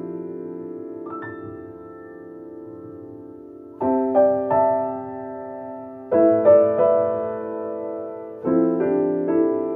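Slow, gentle piano music: soft chords struck about every two seconds, each left to ring and fade before the next.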